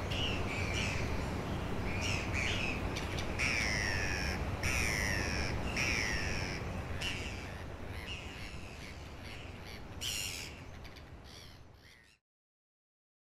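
Gulls calling again and again with falling cries over a steady rush of sea noise. The sound fades down over the last few seconds, with one louder cry about ten seconds in, and cuts off abruptly about twelve seconds in.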